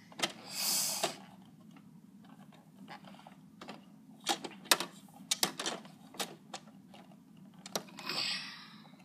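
Hard plastic clicks and knocks from a toy garbage truck's red side-loading arm and a plastic toy garbage can being worked by hand: a dozen or so sharp clicks at irregular intervals. There is a brief rustling hiss about half a second in and another near the end.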